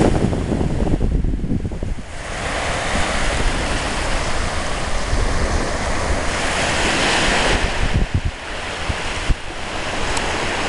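Small Atlantic waves breaking and washing up a sandy beach, with wind buffeting the microphone. The wash swells louder about seven seconds in, and a couple of short low thumps come near the end.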